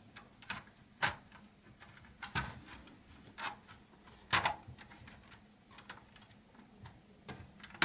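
Plastic clicks and knocks from a Fujitsu Siemens Amilo Pro V3515 laptop's top case as it is pressed down and snapped into place on the base. There are a handful of short, sharp clicks at irregular intervals, the strongest about a second in and just past the midpoint.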